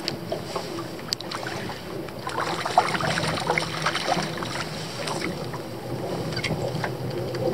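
Wind and choppy water against a small boat, with scattered light knocks and clicks.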